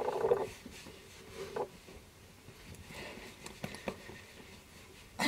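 Faint rustling and soft handling sounds of a fabric bandana being fastened around a fluffy dog's neck, with a few light clicks, after a short bit of voice at the very start.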